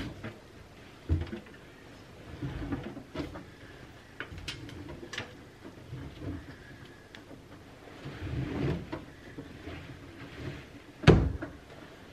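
Tableware knocking and clinking during a meal: scattered light clicks and dull thuds of cutlery, plates and cups on a table, with one louder sharp knock near the end.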